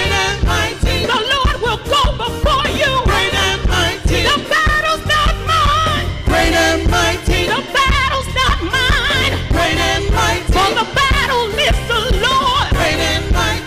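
Gospel praise music: a man's voice singing sliding, wavering runs into a handheld microphone over a band with deep bass and a steady beat.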